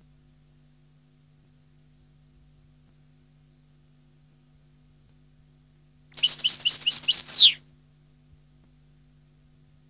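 European goldfinch singing one short phrase about six seconds in: a quick run of about six repeated high notes ending in a single falling whistle, lasting about a second and a half, over a faint steady low hum.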